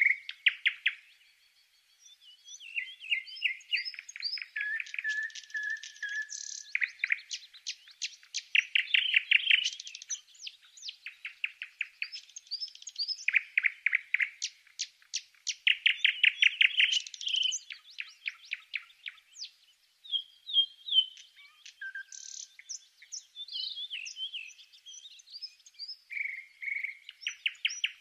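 A songbird singing a long, varied song of fast trills and whistled notes, after a short pause about a second in.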